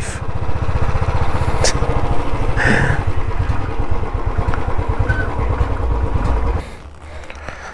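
Motorcycle engine running at low road speed, a steady rapid run of exhaust pulses, which goes suddenly quieter about a second before the end.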